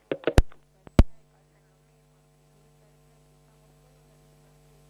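Two sharp clicks on a telephone line as the call is hung up, followed by a faint, steady electrical hum.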